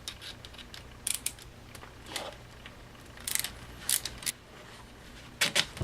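Light, scattered clicks and taps of small tools and plastic and metal parts being handled while an RC truck's axle is taken apart, a dozen or so irregular clicks with the loudest pair near the end.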